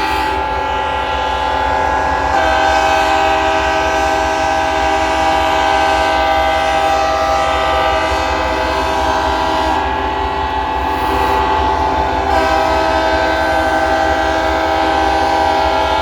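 Several locomotive air horns blowing at once in one unbroken, loud chord. The mix of notes shifts about two seconds in and again about twelve seconds in.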